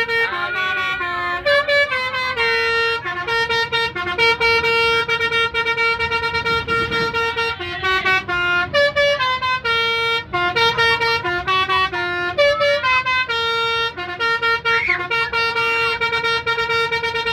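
Indonesian bus 'telolet' musical air horn playing a tune: a string of held horn notes that step between pitches, one note coming back again and again between shorter higher and lower ones.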